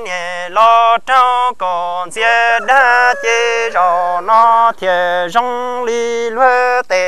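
Hmong kwv txhiaj sung poetry, unaccompanied: one voice chants the verse in short held syllables that step between a few level pitches.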